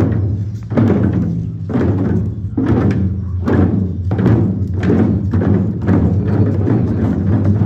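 Large hand-held frame drums beaten with curved sticks by a group of masked dancers, an uneven beat of roughly one to two strikes a second over a steady low hum.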